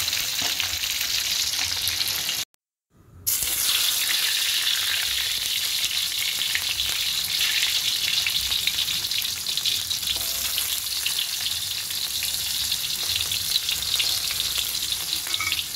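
Hot oil sizzling and crackling in a wok, first around frying fish, then, after a short break of silence about two and a half seconds in, around sliced shallots and garlic being stirred with a spatula.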